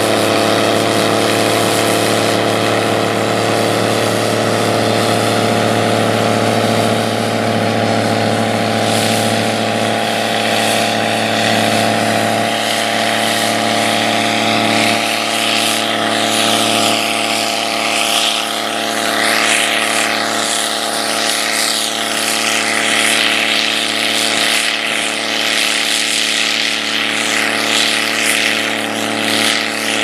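Gleaner R75 combine harvester running under load while harvesting wheat: a steady, even drone of engine and threshing machinery. A rushing hiss grows stronger in the second half, and the sound eases slightly as the combine moves away.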